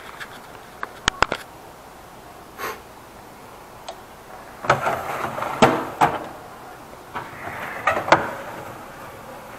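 Metal Craftsman tool box drawers sliding on their runners: a drawer shut and the next one pulled open, each a rattling slide with sharp clicks and knocks, the first starting a little under halfway through and the second near the end. A few light clicks come before them.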